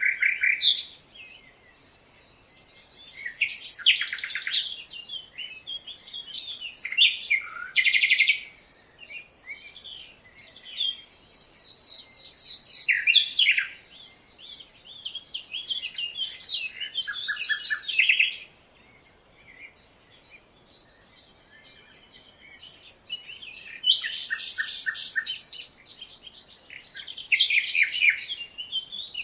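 Jungle birds singing and chirping: a run of varied phrases and rapid trills, each lasting a second or two, with short pauses between them.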